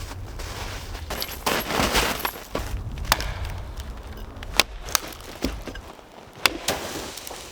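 A handful of sharp cracks and knocks, spaced a second or so apart, with rustling handling noise in the first couple of seconds and a low rumble underneath.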